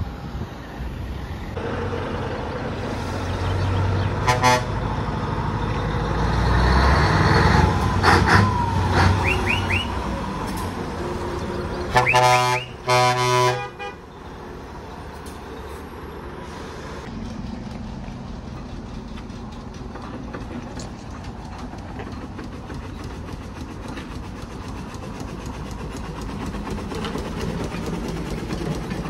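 Lorries driving past with their engines running, and a lorry's air horn sounding two blasts about twelve seconds in, the loudest thing heard. After that a steam traction engine runs past with a quieter, steady, rhythmic beat.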